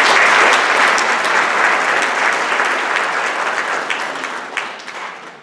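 Audience applause, many hands clapping, loudest at first and dying away near the end.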